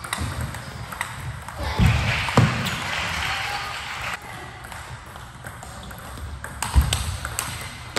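Table tennis rally: a celluloid-plastic ball clicking sharply off paddles and the table, with a few heavier thumps, about two seconds in and again near the end.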